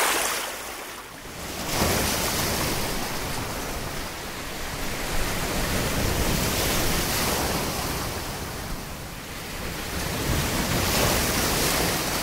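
Sea surf washing in over the shallows: a steady rush of breaking water that swells and eases every few seconds.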